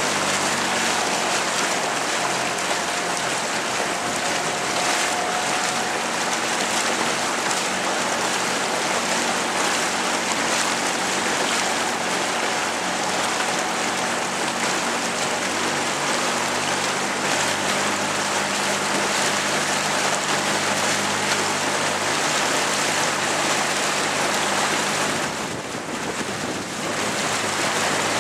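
Steady rushing noise of water and wind alongside a moving boat, with a faint low steady hum underneath; it dips briefly near the end.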